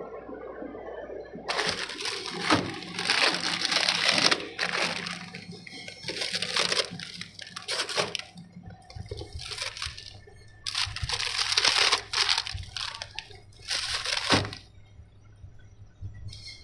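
Water running in several separate bursts of a second or more, starting and stopping, with quieter gaps between.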